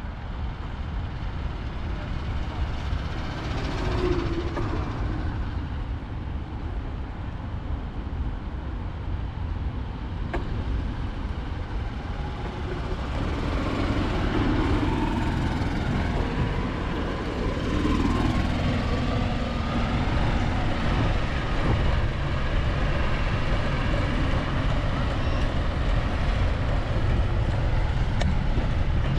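Outdoor ambience dominated by a steady low rumble of road traffic, with some faint passing sounds rising and falling in pitch.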